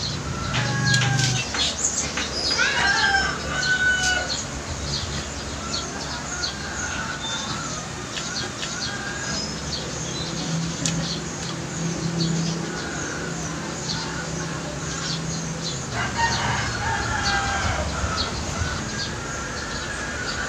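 A rooster crowing near the start and again about three-quarters of the way through, with scattered clucks and short high chirps of poultry and small birds between the crows.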